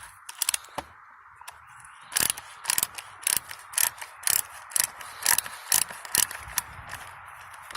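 Ratchet tool clicking as bolts are backed out of a chainsaw's fuel tank mounting. There are a few clicks at first, then a steady run of about two sharp clicks a second.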